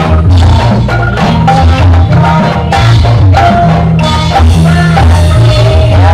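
Loud gamelan-style jaranan music for a kuda lumping dance: metal mallet-struck keys ring out a melody over heavy, driving drum strokes.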